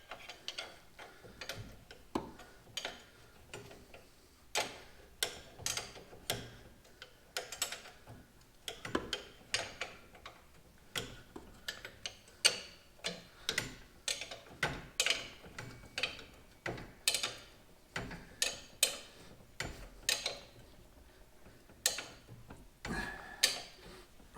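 Irregular sharp clicks and taps from hand tools on parts during workshop assembly, about one or two a second with short pauses between runs.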